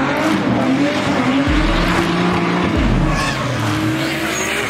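Drift car engines revving hard, their pitch rising and falling again and again, over a dense hiss of tyres spinning and sliding.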